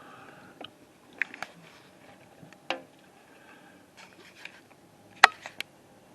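Scattered knocks and clatter from work at a construction site, a few at a time over a faint steady background, with one sharp, loud knock about five seconds in.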